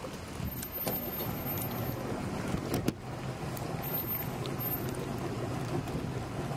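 An engine idling steadily with a low, even hum, with a few sharp knocks, the loudest a little before three seconds in.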